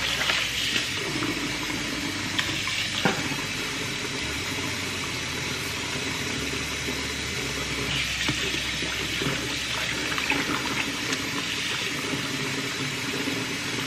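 Kitchen faucet running steadily into a stainless steel sink while shrimp are rinsed and picked clean by hand in a bowl, with a few light knocks.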